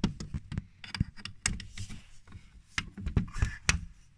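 Irregular knocks, clicks and rustling from a handheld phone being moved and handled, a dozen or so sharp taps spread unevenly through.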